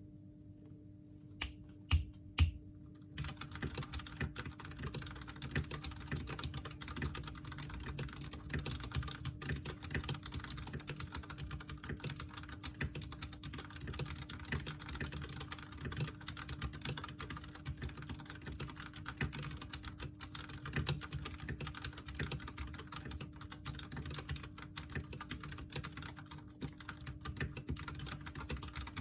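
Royal Kludge RK98 mechanical keyboard with stock RK Red linear switches being typed on. A few separate clicks and two louder knocks about two seconds in, then fast, continuous typing from about three seconds on.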